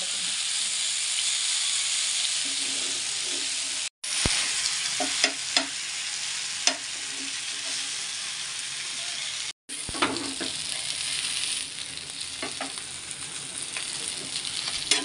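Masala-coated fish pieces sizzling in shallow oil on a flat tawa, with scattered short clicks and scrapes of a metal spatula turning them. The sizzle cuts out for an instant twice, about four and ten seconds in.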